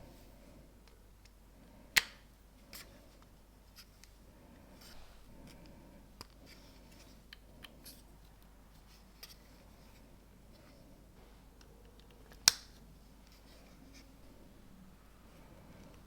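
Small plastic LEGO pieces clicking and clattering as they are handled and pressed together. There are two sharp, loud clicks, one about two seconds in and one later on, with faint ticks scattered between.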